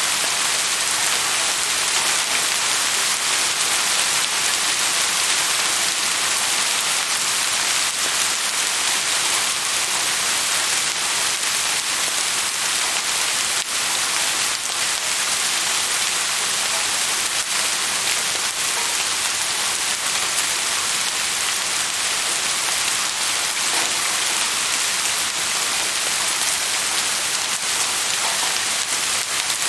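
Steady rain falling and pattering on a surface, a dense even hiss with scattered faint drop ticks.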